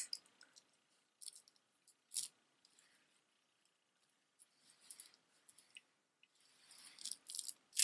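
Faint, sparse clicks and clinks of a gold-tone Monet link necklace with green cabochons being handled and laid down on a cloth, with a closer run of clicks near the end.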